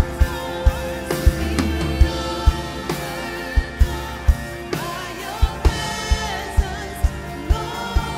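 Live worship music: a man singing over a band, with sustained chords and repeated kick-drum hits.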